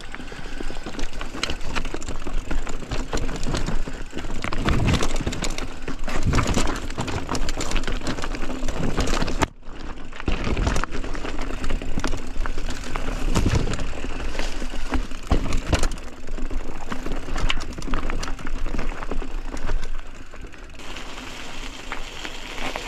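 Mountain bike riding over rough trail: a continuous rattle and clatter with many small knocks from the bike and tyres on rocks and roots. It breaks off for an instant about nine and a half seconds in.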